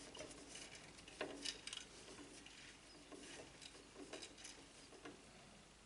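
Faint, scattered clicks and scrapes of a screwdriver working CPU cooler mounting screws, which are going in stiff.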